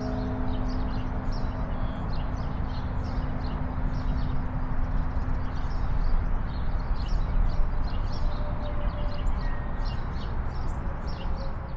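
Strong wind buffeting the foam-screened Schoeps omni microphones, heard as a steady low noise. Many small birds chirp high above it, and the hum of the last church bell strike dies away over the first few seconds.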